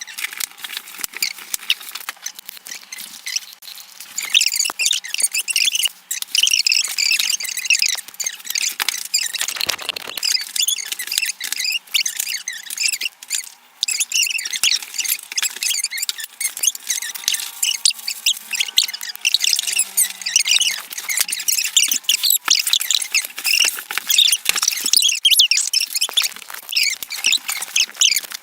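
A cardboard box and its packing being cut and torn open and handled: a busy run of scratching, crinkling and squeaking, with brief lulls.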